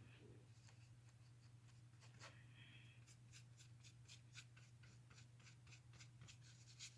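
Faint, scratchy strokes of a paintbrush working acrylic paint back and forth over a canvas textured with modeling paste. The strokes come about three or four a second in the second half, over a steady low hum.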